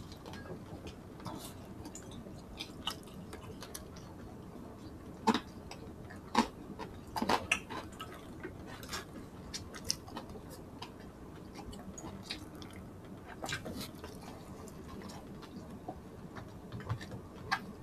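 Quiet close-up chewing and eating by hand, with scattered short, sharp clicks and taps over a low steady hiss.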